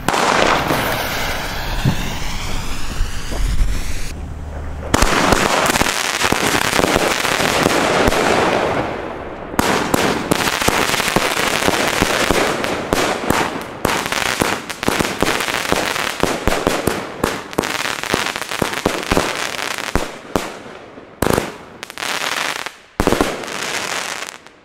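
Panda Red Heat fan-shaped firework cake (460 g NEM) firing: a fast, dense run of shots launching and bursting, with crackling. Near the end it thins to a few separate bursts, then stops.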